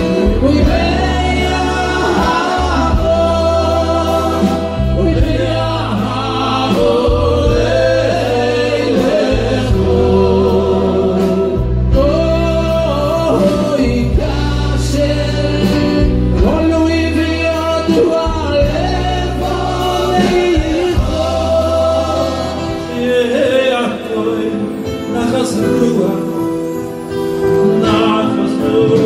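Men singing a Hasidic song together through microphones, with others in the row joining in, over held bass notes that change every couple of seconds.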